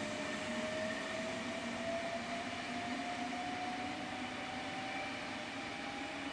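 CityRail electric train R21 pulling away, its traction motors whining in a single tone that rises steadily in pitch as it accelerates, over a steady hum and rumble.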